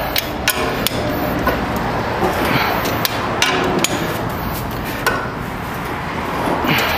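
Irregular sharp metallic clicks and knocks from a long breaker bar and socket on the cylinder head bolts of a Toyota 5L diesel, as each bolt is turned through its final torque angle.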